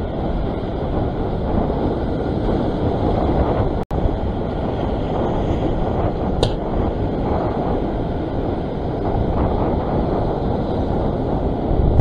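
Steady wind buffeting the microphone over the wash of ocean swell surging against a rock ledge, with a momentary dropout about four seconds in.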